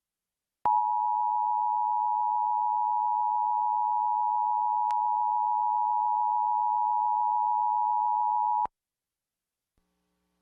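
Emergency Alert System attention signal: a steady two-tone tone, two close pitches sounded together, lasting about eight seconds and cutting off abruptly. It marks an EAS broadcast test, coming just before the test message.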